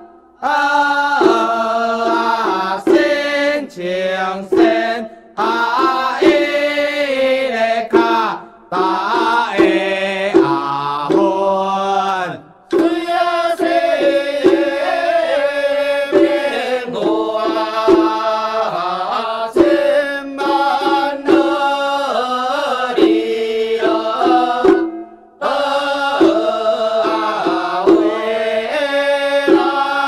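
Music with a chanting voice singing a winding melody, broken by a few brief pauses.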